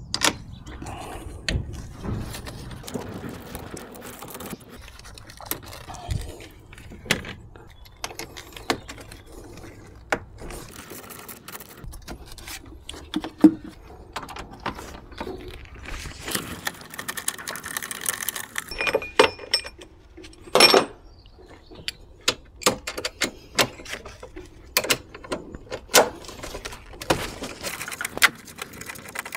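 Hand ratchet wrench and socket clicking in short runs, with metal clinks and knocks of tools and bolts, as a car's 12-volt battery terminal nuts and hold-down bolts are loosened. A longer run of rapid clicking comes a little past halfway.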